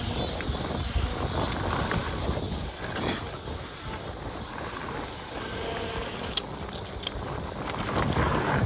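Tyres rumbling over a dirt trail and wind on the microphone as a mountain bike rolls along at speed, with a few light rattles and clicks from the bike. The rumble grows louder near the end.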